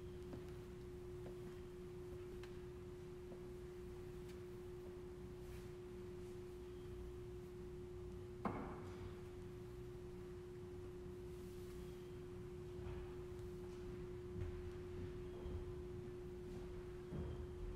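A steady single-pitched hum, with one sharp click about eight and a half seconds in and a few faint knocks near the end.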